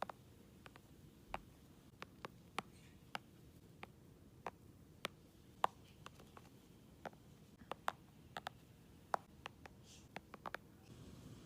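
Light, sharp taps and clicks at an irregular pace, one to three a second, over faint room hiss.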